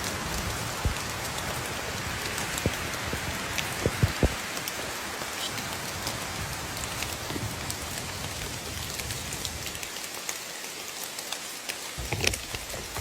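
Steady rain falling, with single louder drops ticking here and there. A few low knocks come in near the end.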